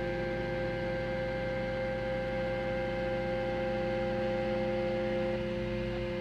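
XYZprinting da Vinci 3D printer running, with a steady whine of several held tones from its stepper motors and a low hum as the print head moves slowly and smoothly along the x-axis rods. The x-axis has been repaired by resoldering its optical sensor wires.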